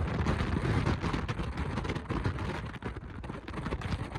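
Car driving along: steady road and wind rush, uneven in level.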